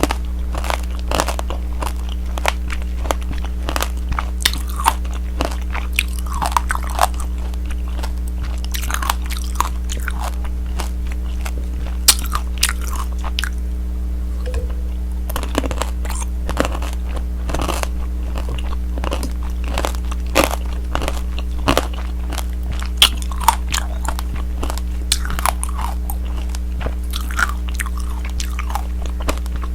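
Crunching and chewing of tanghulu: the hard boiled-sugar candy shell on the fruit cracking between the teeth in many sharp snaps and crackles, with a short lull about halfway through. A steady low hum runs underneath.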